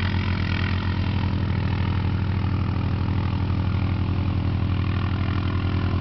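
A vehicle engine idling steadily close by, a low, even, fast pulse that holds unchanged.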